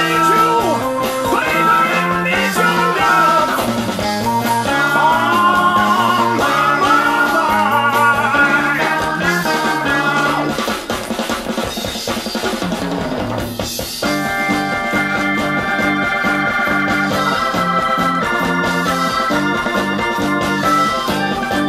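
Early-1970s progressive rock played from a vinyl LP: a lead line bending in pitch over bass and drums, then about 14 seconds in the music shifts to held organ chords.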